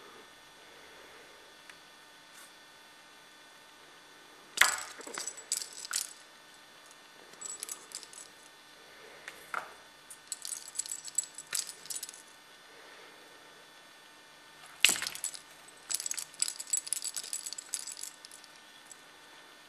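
Metal clasp and rings of a dangled pom-pom toy jangling and clinking in short bursts as a cat bats and tugs at it. Two sharp knocks, about five seconds in and about fifteen seconds in, are the loudest sounds, each followed by a run of jingling.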